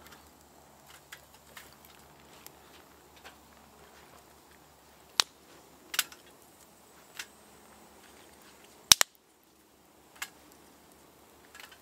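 Wood fire crackling in a titanium hobo stove: a handful of sharp, separate pops, the loudest a double pop about nine seconds in, over a faint quiet background.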